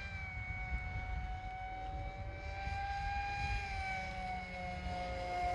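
Electric motor and propeller of an RC Su-34 foam parkjet whining steadily in slow nose-high (high-alpha) flight. The pitch rises a little, then eases down after about three and a half seconds, over a low rumble of wind on the microphone.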